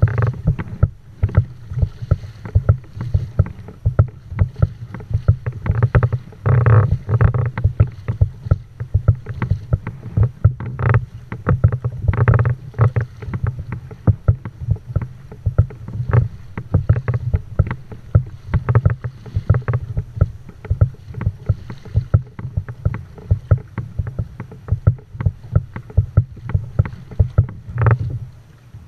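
Water slapping against a plastic kayak hull as it moves under way through light chop: rapid, irregular thumps over a steady splashing.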